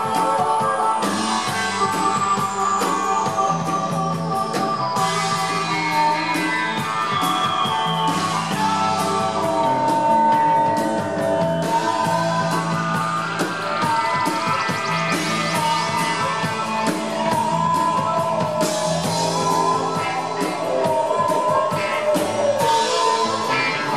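A live rock band playing: electric guitar, bass and drum kit, with a harmonica played into the microphone holding long notes. A long electronic sweep falls steadily in pitch over about the first twelve seconds.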